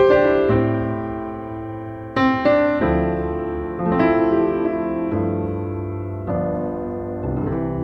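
Background music on piano or electric piano: slow chords struck and left to ring and fade.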